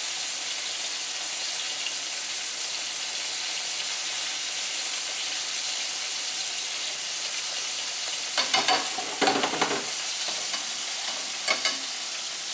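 Chicken pieces sizzling steadily in a hot skillet, with metal tongs clinking against the pan as the pieces are turned: a cluster of clinks about two-thirds of the way through and a couple more near the end.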